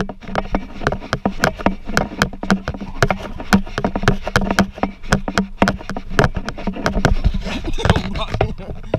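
Irregular knocks and bumps, a few each second, from a moving handheld action camera being jostled, over a steady low hum, with faint voices in the background.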